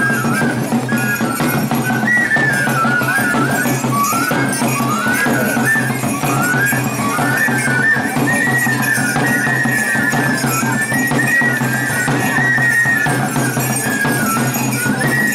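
A traditional flute plays a wandering folk dance melody over a steady low hum.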